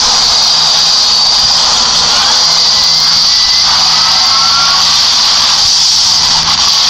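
Loud, steady roar of a disaster movie's volcanic eruption and fire sound effects, played from a screen and picked up off it by a phone.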